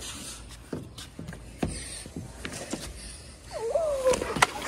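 Scattered clicks, knocks and scrapes of hockey skates and sticks on the rink surface. Near the end, a child's voice rises and falls.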